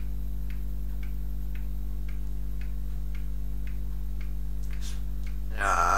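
A clock ticking steadily, about two ticks a second, over a constant low hum. Near the end a voice starts.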